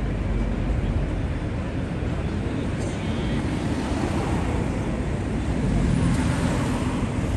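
Busy city street ambience: a steady rumble of traffic with indistinct voices of passers-by.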